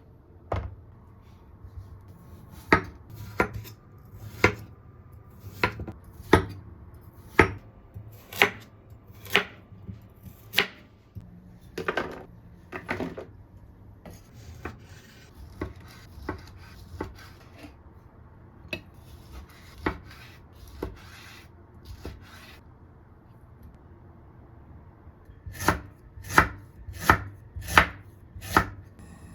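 Knife chopping food on a cutting board: single cuts roughly a second apart, then a quicker run of about six cuts near the end.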